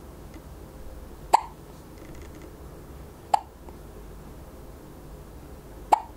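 A four-week-old baby hiccuping three times, short sharp hiccups every two seconds or so.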